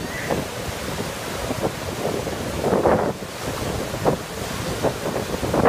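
Ocean surf breaking and washing up the beach, with wind buffeting the microphone in low, uneven gusts. The surf swells briefly louder about three seconds in.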